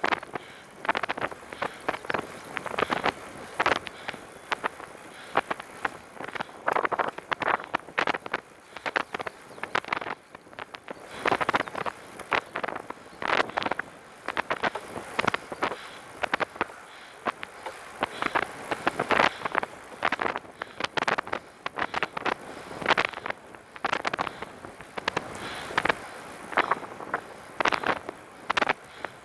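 Recumbent trike rolling along, with a constant irregular clatter of clicks and rattles over a low hiss of motion.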